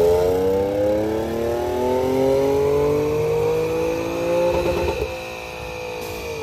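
A car accelerating, its engine note rising steadily in pitch for about four and a half seconds, then easing off lower and quieter near the end.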